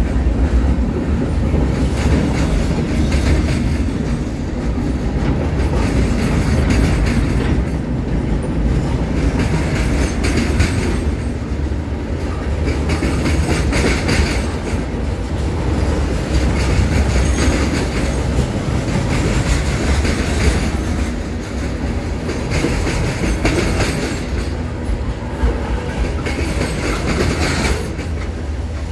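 Freight cars of a CSX mixed freight train rolling past: a steady rumble of steel wheels on rail, with the clickety-clack of wheels passing over rail joints.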